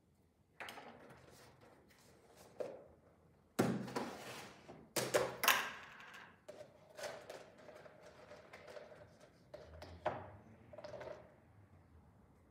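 Plastic tub of raisins being opened, with two sharp knocks about four and five seconds in as the lid comes off and is set down on a wooden table. Then a small plastic measuring cup scooping and scraping raisins inside the tub.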